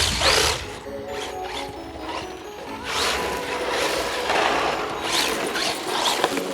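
Redcat Lightning EPX electric RC drift cars running, their motors and drivetrain gears whining up and down several times with the throttle.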